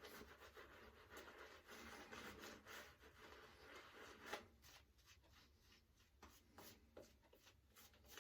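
Faint, soft rubbing of a shaving brush working shaving soap into a lather on the face, turning into quicker, separate brush strokes, about three a second, from about halfway through.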